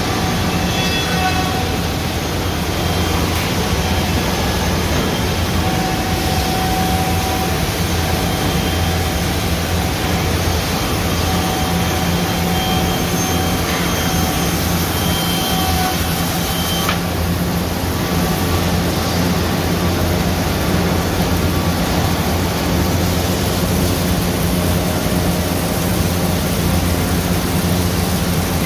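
Automatic CNC wood jigsaw running steadily: a constant machine hum under even noise, with a single sharp click about seventeen seconds in.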